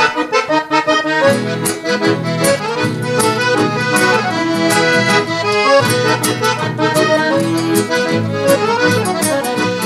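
Piano accordion playing the instrumental introduction to a gaúcho dance tune, with a steady rhythmic bass-and-chord accompaniment.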